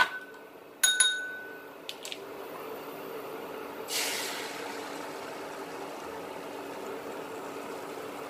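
A couple of ringing clinks about a second in, then beaten eggs poured into hot oil in a nonstick pan, hitting with a short sizzle that fades over a second, over the steady hum of an induction cooktop.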